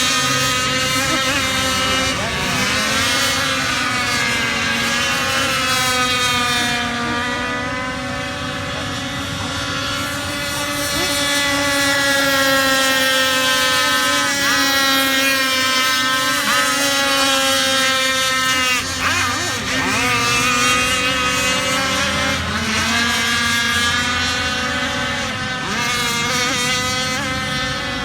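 Radio-controlled speed boat's motor running at speed, a steady pitched note that rises and falls with the throttle, with a few quick drops in pitch past the middle.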